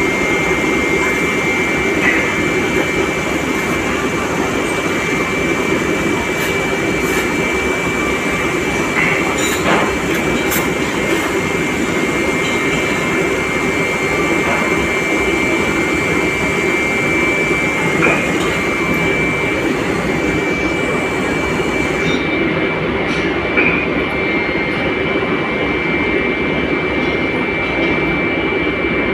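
Steady, loud drone of running foundry machinery, with a constant high-pitched whine over a lower hum and a few faint ticks.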